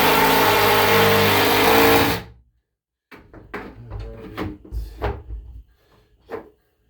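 Power drill driving a screw into a wooden board, running at a steady speed and stopping suddenly about two seconds in. A few light knocks and clicks of handling follow.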